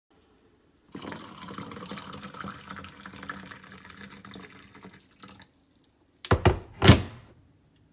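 Water poured in a thin stream into a plastic cup, splashing steadily for about four seconds and fading as the pour stops. Near the end, two loud bumps.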